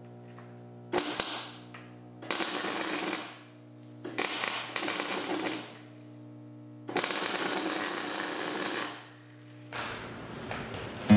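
MIG welder laying short runs: four bursts of welding crackle, the last two longest, with a steady low hum underneath between the runs.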